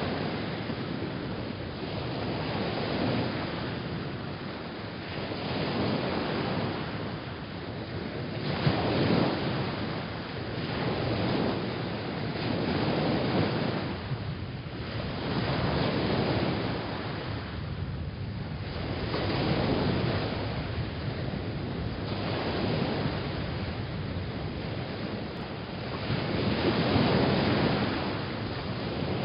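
Waves washing in, a steady rush that swells and fades in slow surges every few seconds.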